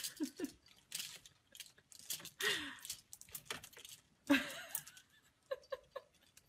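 Clothes hangers clinking and rattling against each other on a closet rod in irregular bursts as an animal climbs among them.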